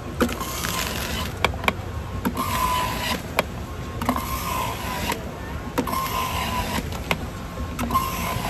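Electric juice extractor running while fruit is pushed down its feed chute with a plunger. The motor whine and shredding hiss swell in repeated bursts, about one every one and a half seconds, with sharp knocks in between.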